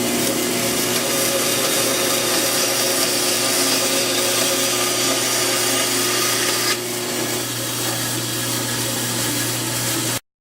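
An electric power tool running steadily on wood, with a steady motor hum under it; about two-thirds of the way through its sound turns duller and slightly quieter, and it cuts off abruptly just before the end.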